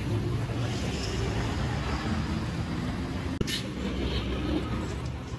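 Street traffic noise: a steady rumble of passing vehicles, with a sharp click about three and a half seconds in.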